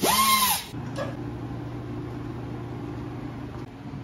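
Pneumatic die grinder on a steel roll-cage tube: a short burst with hissing air, its pitch rising and then falling as the tool spins up and winds down. A steady low hum follows.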